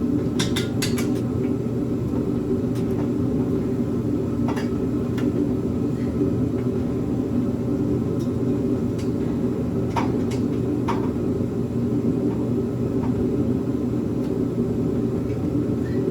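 Metal clinks and taps from tools on exhaust header bolts: a quick cluster at the start, then scattered single clicks. A loud, steady low rumble runs under them.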